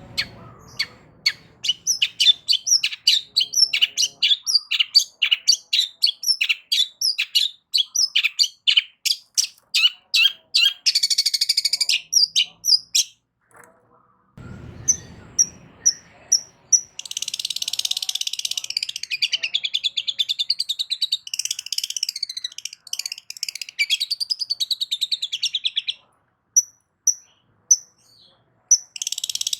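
Long-tailed shrike (cendet) singing loudly. Long runs of fast, sharp, repeated high notes alternate with harsh, scratchy chattering bursts.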